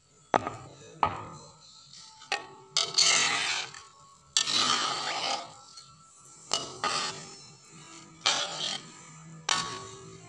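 Metal spatula scraping and knocking against a metal cooking pan while stirring fish in coconut-milk gravy: a few sharp clinks and several longer scraping strokes at irregular intervals.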